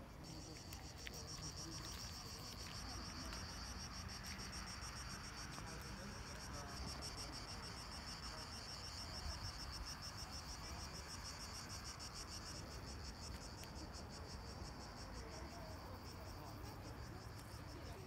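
Insects chirring in a steady, high, fast-pulsing trill, with a low rumble of wind underneath.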